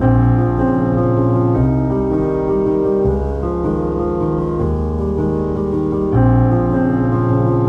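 Background piano music, with the chords changing about every second and a half.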